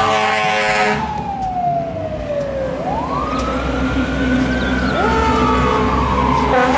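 Fire truck sirens wailing, winding slowly down, then sharply back up and slowly down again, with a second siren joining near the end over the low rumble of the trucks' engines. A loud horn blast opens it in the first second.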